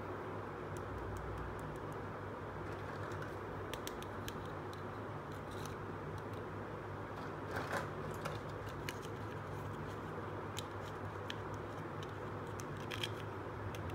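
Light plastic clicks and taps from handling a small plastic toy basket with toy fruits inside, scattered and irregular, the sharpest a little under halfway through, over a steady background hum.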